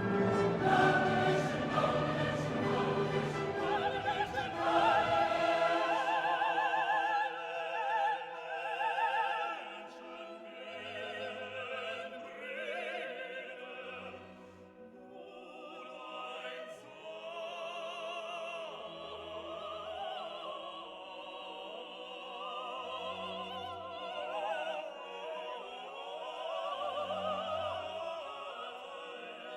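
Background music: operatic classical piece with choir and orchestra, singing voices with vibrato over sustained low notes, fuller in the first few seconds and then thinner.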